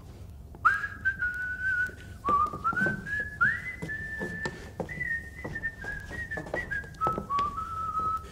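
A man whistling a tune, a run of held notes that each scoop up into pitch, starting about half a second in, with footsteps on wooden floorboards.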